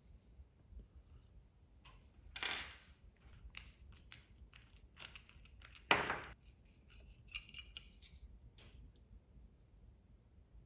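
Handling noises from fitting the timing belt and a small tensioner block onto a Creality Ender 3 V2's X-axis: scattered small clicks and rustles of belt and parts. There is a brief scrape about two and a half seconds in and a sharp knock about six seconds in.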